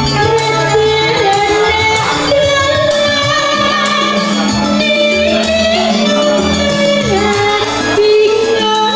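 A woman singing into a microphone with vibrato in her voice, over electronic keyboard accompaniment with sustained bass notes.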